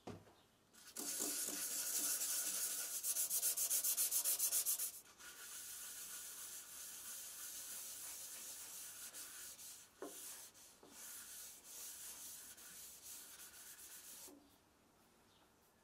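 A paper towel rubbed by hand over the face of an oak plate. Hard, quick strokes in the first few seconds, then lighter, steady rubbing that stops shortly before the end, with one small knock midway.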